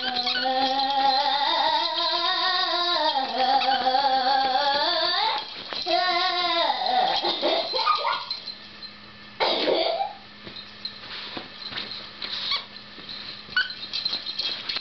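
Boston terrier whining: one long wavering whine of about five seconds, then shorter whines. After that, light scratching and scraping at a pillow as she paws and digs at it.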